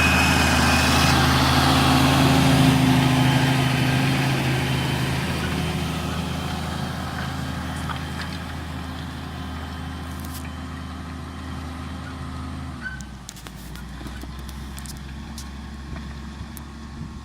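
Valtra T171 tractor's six-cylinder diesel engine running steadily, growing gradually fainter from a few seconds in. About thirteen seconds in, its note drops lower and quieter.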